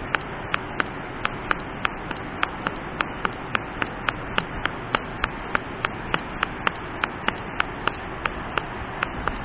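A steady rushing noise with sharp clicks at an even pace, about three a second, standing out over it.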